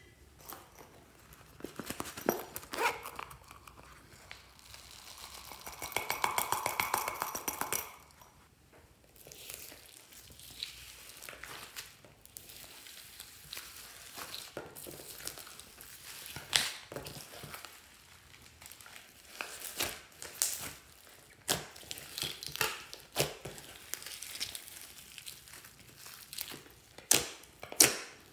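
Hands kneading and folding glossy slime mixed with foam beads and glitter, giving irregular crackles and sharp pops, with a denser run of crackling about six seconds in.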